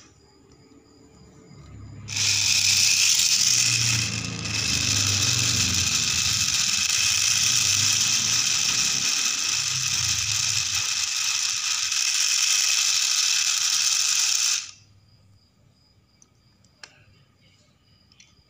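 Homemade RC car gearbox driven by an electric motor, running with a loud rattling whir that starts suddenly about two seconds in, falters briefly, and cuts off abruptly after about twelve seconds.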